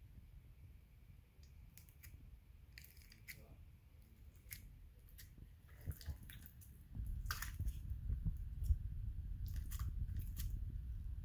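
Slime being squeezed and stretched by hand, giving scattered small clicks and crackling pops. A low rumble of handling comes in about seven seconds in.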